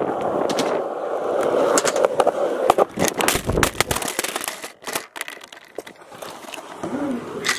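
Skateboard wheels rolling on concrete, then a run of sharp knocks and clatters about three seconds in as the board hits a pebble and the handheld camera flies off and tumbles across the ground.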